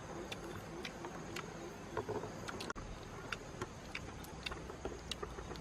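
Irregular light clicks and taps over a steady background hiss with a faint, high, steady tone.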